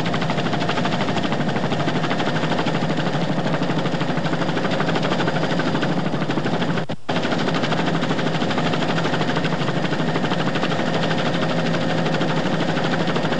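Helicopter rotor chop and engine whine heard from aboard the aircraft: a steady, rapid beating with a constant hum under it. It breaks off for a moment about halfway through.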